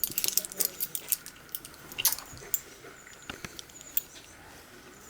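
A quick run of light clicks and rattles as a dog moves about with its lead, thickest in the first two and a half seconds, then a few scattered ticks.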